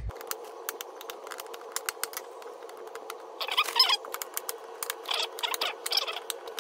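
Kitchen knife cutting peaches into chunks on a wooden cutting board: irregular light knocks of the blade against the board, with a few short scraping slices through the fruit.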